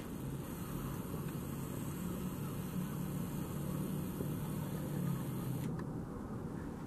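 A camcorder's zoom motor whirring steadily as the lens zooms in, a low hum that stops abruptly about a second before the end, over a steady outdoor background noise.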